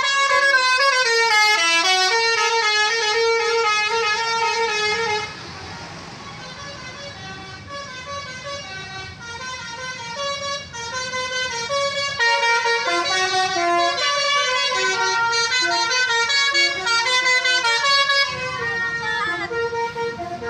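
Bus telolet musical air horn (Basuri) playing a tune of quick stepped notes, loud for the first five seconds. It then drops away, and the tune comes back, loud again from about twelve seconds.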